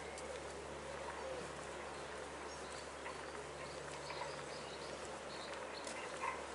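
Small birds chirping faintly and intermittently over a steady outdoor background hiss.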